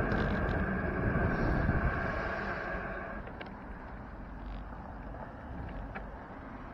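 Wind and road noise on a bicycle-mounted camera's microphone as the bike rolls, growing quieter about halfway through as it slows; a steady high whine runs through the first three seconds.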